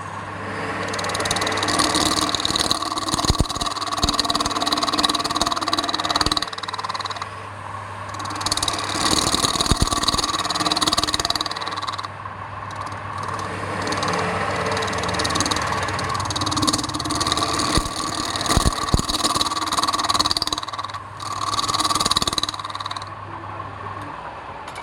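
Wood lathe running with a steady low hum while a turning tool cuts the spinning wood. The cutting is a hissing scrape that starts and stops over several passes, with occasional sharp clicks. The hum stops near the end.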